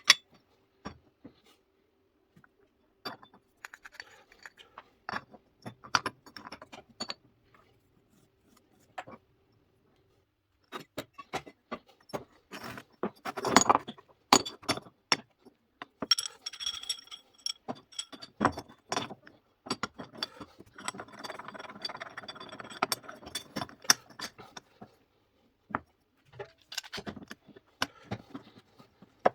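Metal parts and tools clinking, knocking and scraping in irregular taps. There is a brief metallic ringing about sixteen seconds in and a stretch of scraping a few seconds later. A faint steady hum runs under the first ten seconds.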